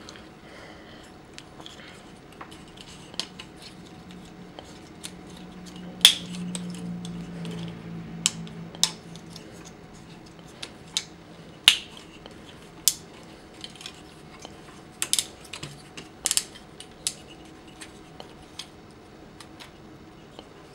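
Plastic clicks and snaps of a transforming robot figure's joints and parts being moved and clicked into place by hand. They come irregularly, with a few sharper, louder snaps among the light ticks.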